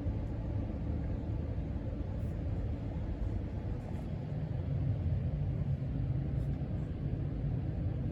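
Casablanca Panama 5 ceiling fan running steadily on a low speed: a low, even hum and rumble of the motor and the moving blades.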